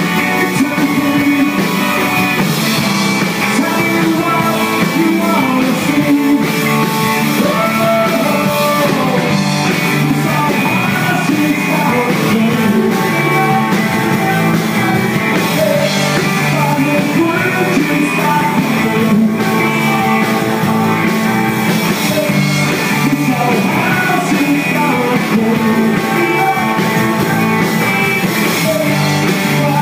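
Live rock band playing, with electric guitars and drums, and a lead vocal sung over them.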